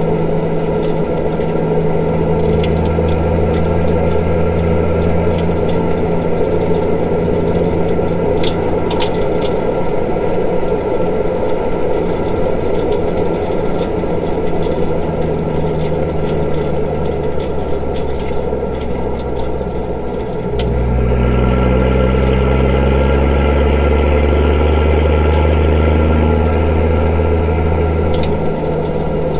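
Straight-piped Nissan Patrol TD42 4.2-litre straight-six diesel running on the road. About two-thirds of the way in the engine note gets heavier and louder under more load, easing back near the end.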